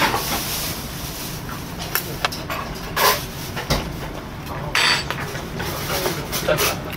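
Mukbang eating sounds: chewing, with scattered short clicks and taps of metal chopsticks against a plate, over steady room noise.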